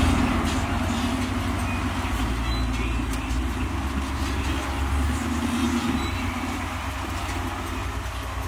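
Engine of an off-road vehicle crawling over rocks at low revs, a steady low running sound that slowly fades.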